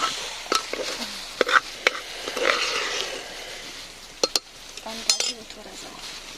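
A spoon stirring rice in a cooking pot, with several sharp clinks against the pot and a soft scraping hiss between them.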